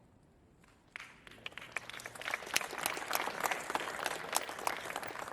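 Audience applauding: the clapping starts about a second in, swells, and begins to thin out near the end.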